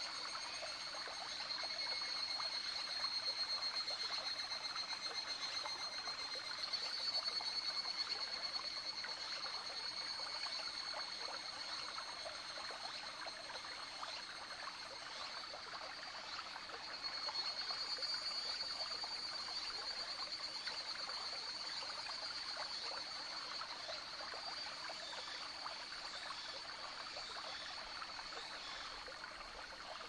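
Higurashi evening cicadas calling in a high, pulsing chorus that swells louder a few times, over a small forest stream trickling and babbling steadily.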